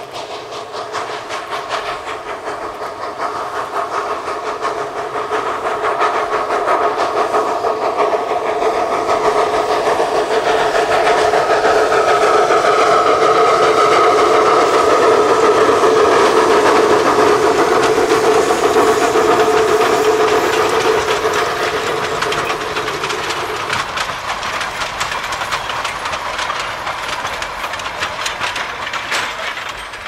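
Narrow-gauge steam locomotive hauling a train of carriages past: exhaust chuffing and hissing steam with wheels clattering on the rails, growing louder to a peak about halfway through and then fading. A steady high ringing tone runs under it and stops about six seconds before the end.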